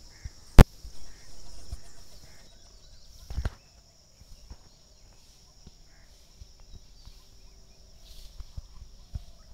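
Steady high-pitched insect buzz, such as crickets, with a single sharp knock about half a second in and a softer knock a few seconds later.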